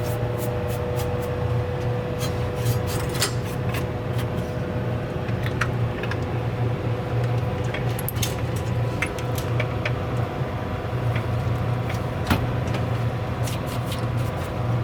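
Steady low machine hum with a faint held tone above it, and scattered small clicks and light rattles throughout.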